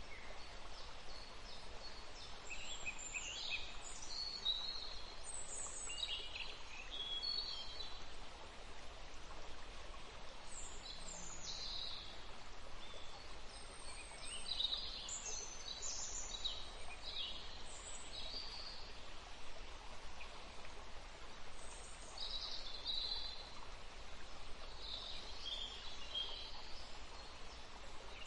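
Recorded nature sounds: birds chirping and singing in short, scattered high calls over a steady hiss.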